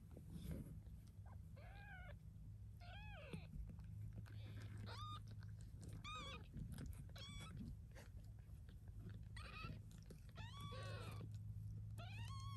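Newborn kittens mewing: about eight short, high-pitched cries, each rising then falling in pitch, spaced a second or two apart, while the mother cat licks them, with soft licking clicks and a steady low hum underneath.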